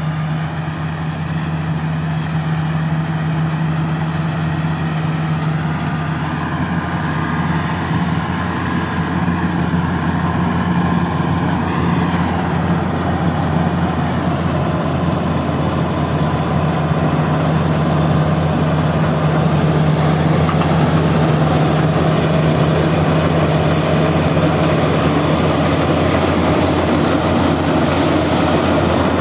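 Tracked rice combine harvester (BIMO 102) running steadily while it cuts and threshes standing rice: a constant engine hum under mechanical noise, growing louder as the machine comes closer.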